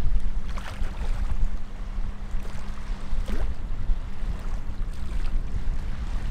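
A boat's engine droning low and steady, with river water rushing and splashing past the hull and wind rumbling on the microphone. A steady hum in the drone fades out a little past halfway.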